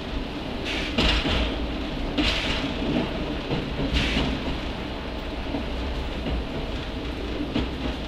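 NOHAB 100 series diesel railcar running along the line: a steady low rumble from engine and wheels, a knock about a second in, and a few short hissing swells.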